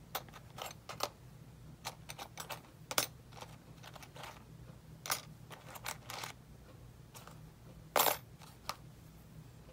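Thin metal craft cutting dies clicking and clinking as they are picked off their card backing sheet and handled, in scattered light taps with louder clacks about three seconds in and again near eight seconds.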